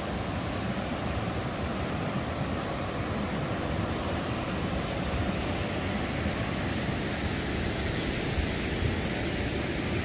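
Steady rushing of water at Kalambo Falls, a single-drop waterfall: an even wash of noise with a heavy, unsteady low end.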